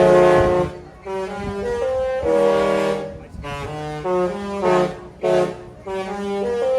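Disney cruise ship's musical horn playing a tune: chords of several horn notes that step from pitch to pitch, in phrases with short breaks between them.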